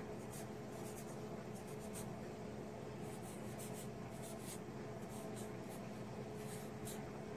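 Felt-tip marker writing letters on lined notebook paper: a run of short, irregular scratchy strokes, faint, over a steady low hum.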